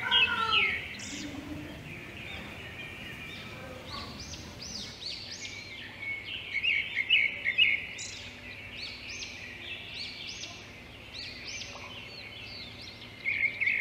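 Birds chirping: many short, quick calls over a faint steady hiss, busiest about six to eight seconds in.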